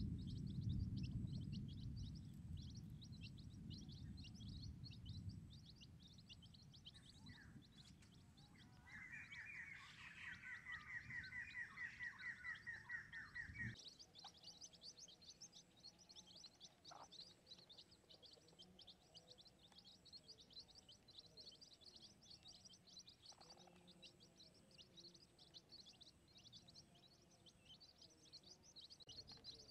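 Faint outdoor ambience with a steady, rapid, high chirping. A faster trill sounds from about 9 to 14 seconds in, and a low rumble fades away over the first few seconds.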